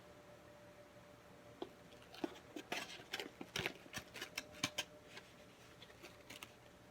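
Quiet, irregular small clicks and light rustling of food containers and utensils being handled, starting about a second and a half in.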